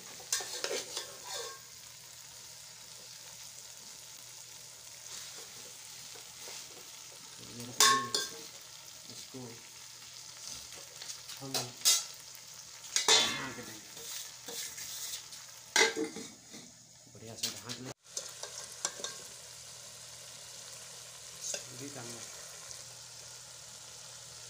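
Whole masala-coated chicken sizzling in a metal pot over a charcoal fire, with a metal spoon scraping and knocking against the pot several times as the masala is spread over the bird.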